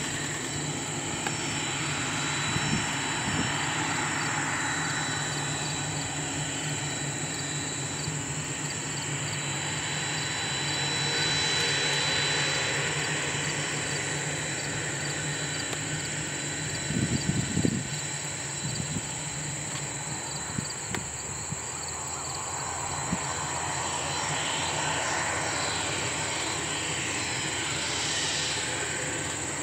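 T-1A Jayhawk's twin turbofan engines running at taxi power, a steady jet whine with a thin high tone. It grows louder for a few seconds partway through, and a few brief low thumps come a little past the middle.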